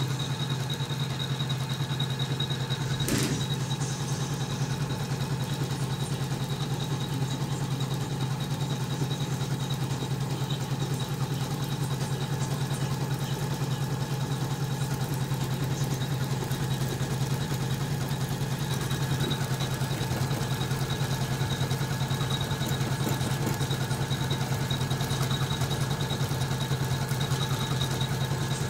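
Usha Janome MC450E computerised embroidery machine running steadily as it stitches a design, the needle going with a fast, even rhythm. There is a single sharp click about three seconds in.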